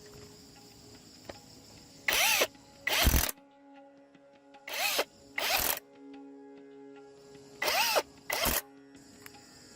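Power drill run in six short bursts, paired about every three seconds; the first burst of each pair spins up and winds back down.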